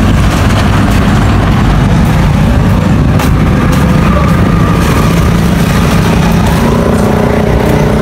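Wind buffeting the microphone: a loud, steady low rumble with no break.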